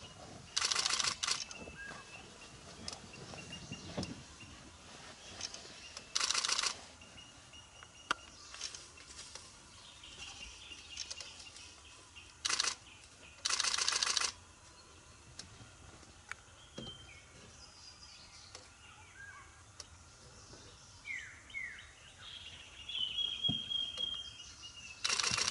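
Camera shutters firing in several bursts of rapid clicks, each lasting up to about a second, over quiet outdoor ambience with scattered bird chirps.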